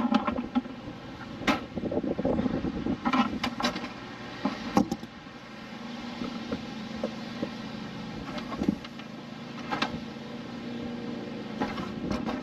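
Hands handling a plastic RV antenna housing and its coax cable: several sharp knocks and clicks in the first few seconds, a few lighter ones later. A steady low hum starts about halfway through.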